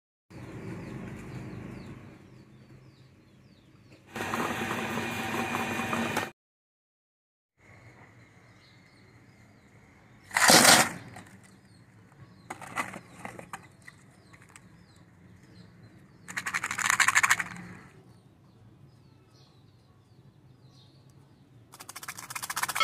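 Small plastic topping cups being handled and knocking about in a plastic storage tub, heard as several separate bursts of rattling and clicks. Birds chirp faintly in the background.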